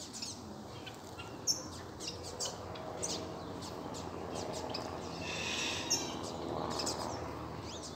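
A flock of double-collared seedeaters (coleiros) calling together from a tree: many short chirps overlapping and scattered, one bird calling and others answering.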